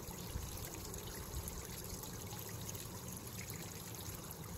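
Steady background trickle of running water, with no other event standing out.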